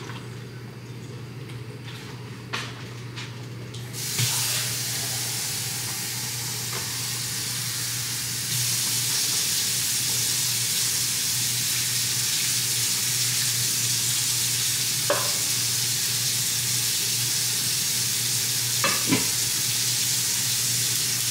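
Steady sizzling hiss from the pot of crab legs on the gas stove, starting about four seconds in and getting louder about four seconds later, with a few light clicks and knocks of handling.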